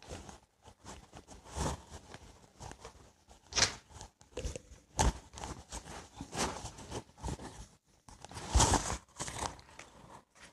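A whiteboard being wiped clean by hand: a string of short, irregular scrubbing and rubbing strokes across the board's surface.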